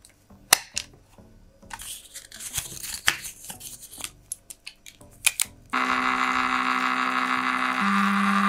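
Mini thermal printer: scattered clicks and paper rustling as its paper roll is handled and fitted, then, about two-thirds of the way in, the printer starts printing with a steady loud buzzing whine from its paper-feed motor. The whine drops a step in pitch near the end.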